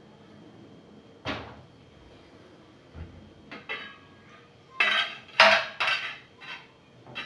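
Metal utensils clinking against a cooking pot and dishes: one sharp clatter about a second in, then a quick run of clinks in the second half, the loudest a little past the middle.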